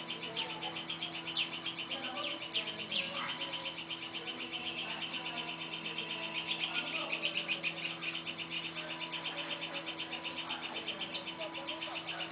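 Baby bird chirping in a rapid, steady run of high chirps that grows louder for a moment just past the middle. A single sharp call cuts in near the end.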